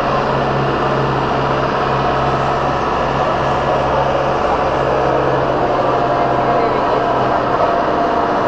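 Steady, loud rushing roar of a large waterfall, with a low steady hum underneath that stops about seven seconds in.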